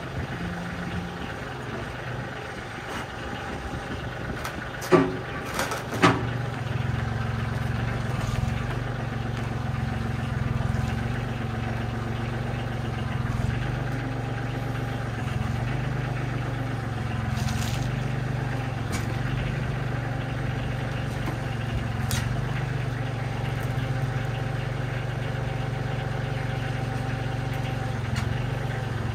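Kioti CK30 compact diesel tractor's engine running steadily while its front loader raises a framed wall; the engine note grows fuller about six seconds in. Two sharp knocks, a second apart, come shortly before that.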